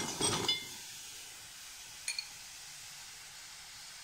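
Lumps of jaggery tipped into a steel pot, clattering and clinking against the metal for about half a second. After that only a faint steady hiss remains, with two light ticks about two seconds in.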